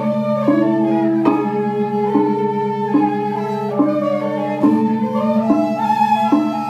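Two Balinese suling bamboo flutes playing a duet: a melody of stepped notes changing about every half second over a continuous lower held tone that never breaks.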